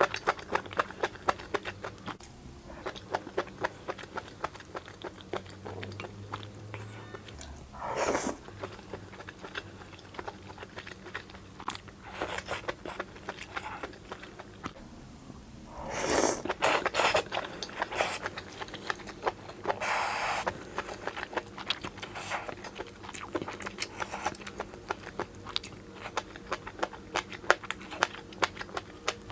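Close-miked crunchy chewing of beef aorta (黄喉), a dense run of sharp crisp clicks as the rubbery pieces are bitten and chewed. A few louder, noisier bursts come about 8 s, 16 s and 20 s in.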